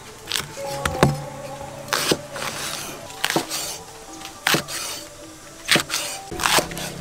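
Background music over sharp knocks about once a second, a knife chopping on a wooden cutting board.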